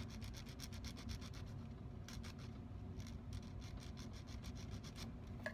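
Hand file rasping across the flush-cut end of a 14k gold wire in quick, faint back-and-forth strokes, squaring the edge for a ring band.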